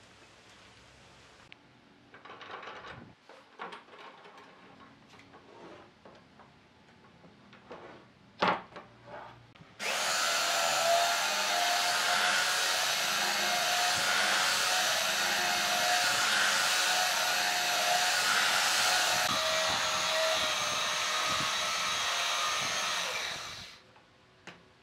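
A few light knocks and taps of handling, one sharp knock about eight seconds in, then a handheld belt sander starts and runs steadily over a glued-up wooden tabletop, a steady whine under the sanding noise, and cuts off abruptly near the end.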